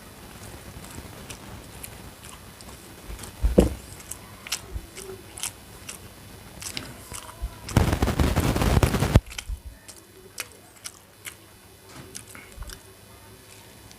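A person eating close to the microphone, chewing and biting with scattered mouth clicks and smacks. There is a thump about three and a half seconds in and a loud burst of noise lasting over a second about eight seconds in.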